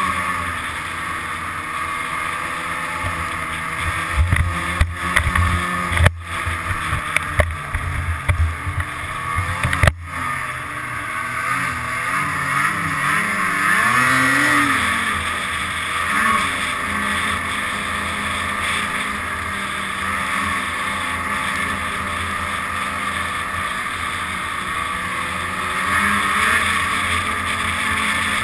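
Snowmobile engine running steadily as the sled travels a trail. About four to ten seconds in there is a stretch of heavy thumps and knocks. A little later the engine note rises and falls once as the throttle is opened and eased off.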